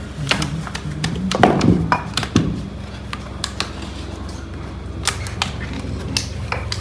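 Irregular sharp taps and clicks of willow cricket bats being worked and handled in a bat workshop, over a steady low machine hum.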